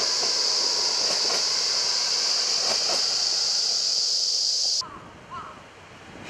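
JNR KiHa 40 diesel railcar passing over a road bridge, its running and rail clatter faint under a loud steady high-pitched hiss from the summer woods. About five seconds in the sound cuts off abruptly, leaving quiet outdoor ambience with a few short bird chirps.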